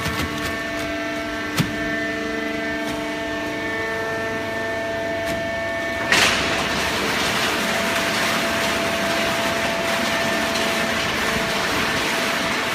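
Hydraulic cardboard baling press running: a steady machine hum, a single sharp click about a second and a half in, then a sudden louder rushing noise about six seconds in that keeps going.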